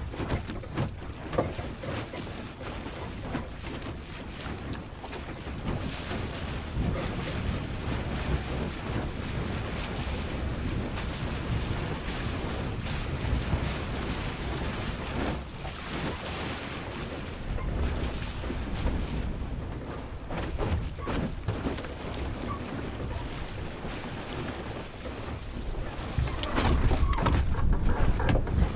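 Strong wind buffeting the microphone over water rushing and splashing along the hull of a small flat-bottomed plywood sailing skiff under way. It gets louder near the end, as a stronger gust or splash comes through.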